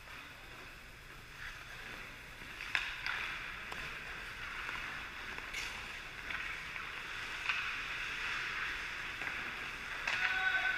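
Ice hockey skate blades scraping and gliding on the ice as a steady hiss, with a few sharp clacks of sticks and puck, the first about three seconds in. A player's shout starts near the end.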